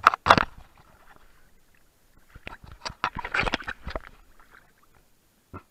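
Pool water splashing and sloshing against a waterproof camera case at the surface: two sharp splashes or knocks at the very start, a burst of splashy clicking about two and a half to four seconds in, and one more short knock near the end.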